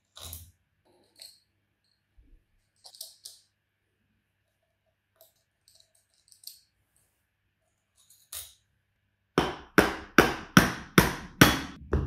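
Scattered light clicks and taps of a screwdriver and screws on an electric motor. About nine seconds in, a quick run of about eight hard blows from a nylon-faced mallet on the motor's metal body begins, each ringing briefly; this is the knocking that frees the motor for disassembly.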